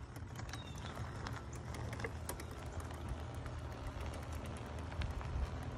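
Juiced Scrambler fat-tyre e-bike pedaled slowly over asphalt, not under motor power: scattered faint drivetrain clicks and tyre noise over a low steady rumble.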